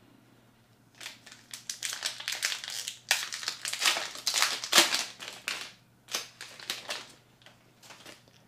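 Foil Pokémon booster pack wrapper crinkling and crackling as it is opened and handled. It starts about a second in, is loudest in the middle, and trails off into a few scattered crinkles near the end.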